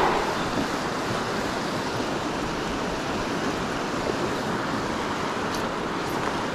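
Steady rushing of a river's riffles flowing over rocks.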